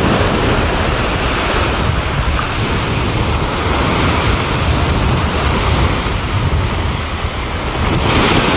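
Small waves breaking and washing up over sand at the water's edge, with wind rumbling on the microphone. A wash of water swells louder near the end.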